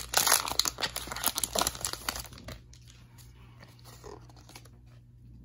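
Foil wrapper of a Pokémon TCG booster pack crinkling and tearing as it is opened by hand, stopping about two and a half seconds in.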